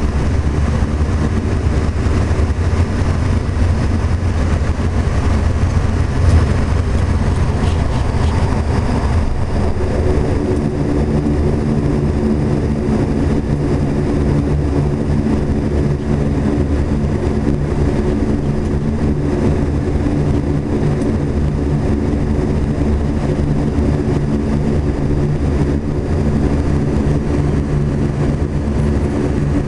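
Turboprop airliner's engines heard from inside the cabin while taxiing after landing: a steady low drone, joined about ten seconds in by a set of steady humming tones as the engine note changes. A single brief knock sounds about six seconds in.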